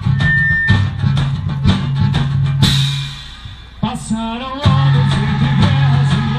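Band music with a drum kit beat and a heavy bass line. About two and a half seconds in, a cymbal crash leads into a short break with rising sliding notes, and the full band comes back in about two seconds later.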